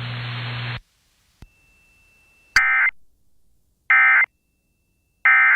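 Emergency Alert System end-of-message signal: three short, identical buzzy bursts of SAME digital data, about a second and a third apart, marking the close of the severe thunderstorm warning broadcast. Before them, broadcast static with a low hum cuts off under a second in, followed by a click.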